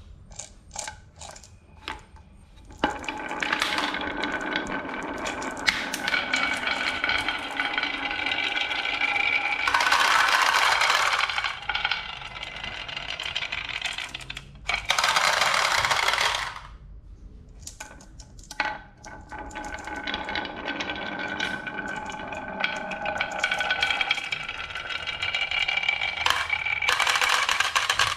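Marbles rolling and clattering down a wooden marble-run track: a few separate clicks at first, then a long, steady rolling rumble broken by louder rushes of clatter.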